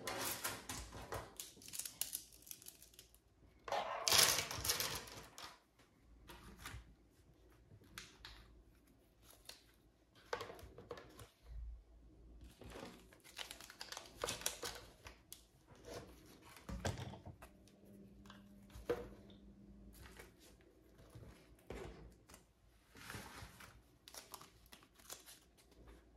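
Small plastic bags of modelling clay crinkling and rustling in irregular bursts as they are picked up and packed into a cardboard box, loudest about four seconds in.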